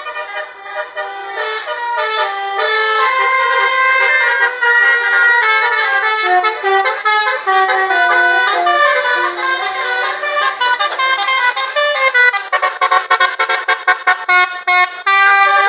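Telolet horns of a tour bus, multi-note air horns playing a melody of changing pitched notes, then a fast run of short staccato blasts near the end.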